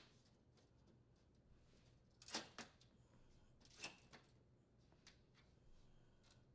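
Near silence, broken by a few faint taps and clicks, two about two seconds in and two more about a second later, as the oven door glass is fitted into the metal trim channel.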